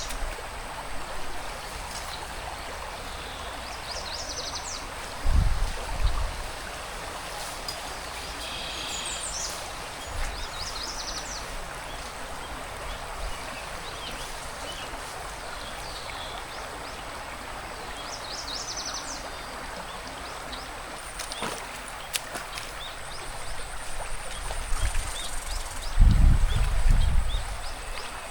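Forest stream flowing steadily, with small birds giving short runs of high chirps several times. There is a brief low rumble about five seconds in and a louder one near the end.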